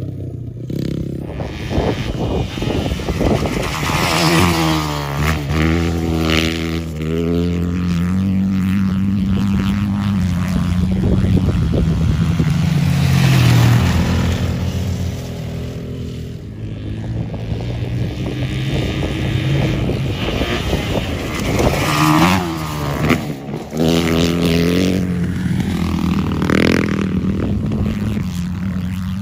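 Dirt bike engines running hard on an ice track, the pitch climbing again and again as the bikes accelerate and dropping as they ease off.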